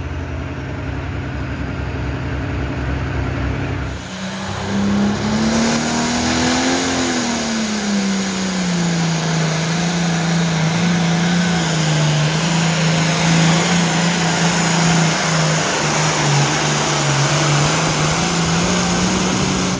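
A turbocharged International pro stock pulling tractor's diesel engine running flat out under load as it drags the weight sled, its pitch rising briefly, then sagging and holding low and steady as the sled bogs it down. For the first few seconds, before an abrupt change, another pro stock tractor's engine runs steadily while hooked to the sled.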